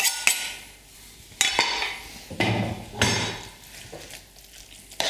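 A kitchen knife scraping and tapping chopped garlic off a wooden cutting board into a pan, giving a handful of sharp knocks and scrapes, then a utensil stirring through the stew in the pan.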